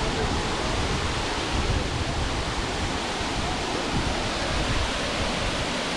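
Steady rush of a large waterfall: Burgess Falls, a cascade of more than 130 feet, pouring down its rock ledges into the plunge pool below.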